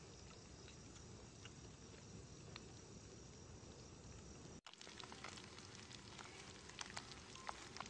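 Near-silent outdoor ambience with faint insects trilling. A sudden cut comes a little past halfway, after which there are scattered faint ticks and crackles.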